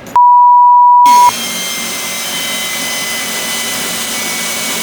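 A censor bleep, one steady beep tone, for about the first second. Then an impact wrench runs without a break for about four seconds with a high whine, driving a 15 mm bolt.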